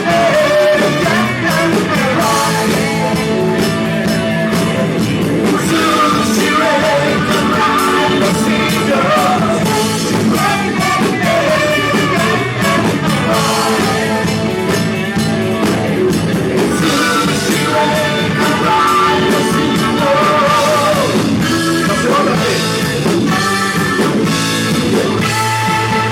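Rock band playing live: drums, bass and electric guitar with a bending melodic lead line over them.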